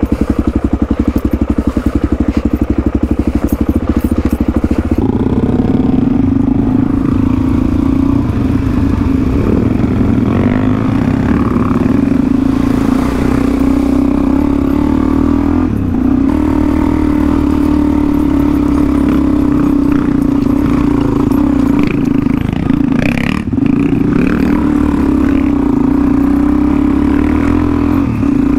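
Dirt bike engine idling with a fast, even beat after being started. About five seconds in it pulls away and runs steadily at low revs, with a couple of sharp knocks, one about sixteen seconds in and another near twenty-three.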